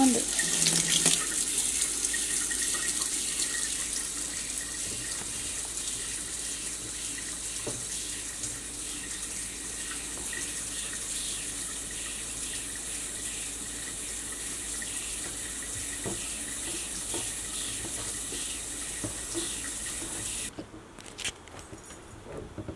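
Water running from a stainless pull-down kitchen faucet into the sink, a steady hiss that cuts off suddenly about twenty seconds in, followed by a few faint knocks.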